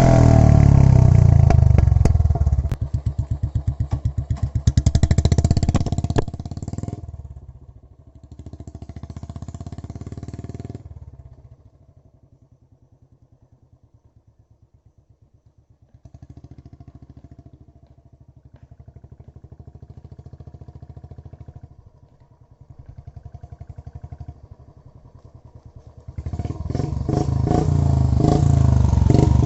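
Royal Enfield Classic 350's single-cylinder engine running through a short bottle free-flow silencer. It is loud and revving at first, then falls to a quiet, even idle thump in the middle, and revs loud again for the last few seconds.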